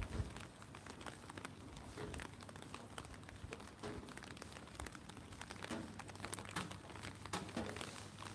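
Rain falling on an umbrella canopy just overhead: a dense, irregular pattering of small ticks. Faint footsteps on wet pavement sound roughly once a second beneath it.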